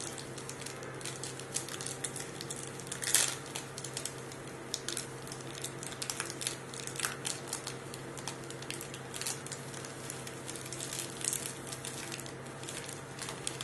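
A chocolate bar's wrapper being peeled open by hands in plastic gloves: irregular crinkling and crackling of the wrapper and gloves, with one louder crackle about three seconds in, over a steady low hum.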